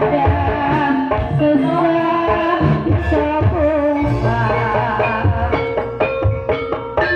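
Live Banyumasan ebeg gamelan music, played through a sound system: singing over hand-played kendang drums. About four seconds in, a steady run of struck gamelan metallophone notes with a heavier low beat takes over.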